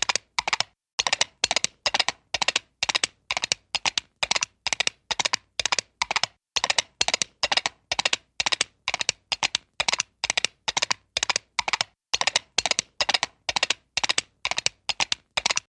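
Comic horse-hooves gallop sound effect: quick clusters of clicks in a steady gallop rhythm, about two to three strides a second, stopping abruptly near the end.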